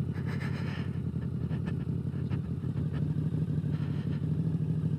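Harley-Davidson motorcycle engine running steadily at low revs as the bike rolls along slowly, a low engine note with a fast even pulse.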